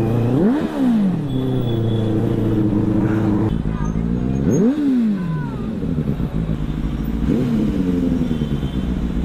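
Benelli 600i's inline-four engine idling and blipped three times, each rev rising sharply and dropping straight back: once right away, once about halfway through, and once near the end.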